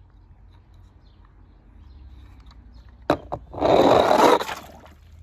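Toy car knocking twice, then about a second of loud rushing scrape as it goes down into the pool.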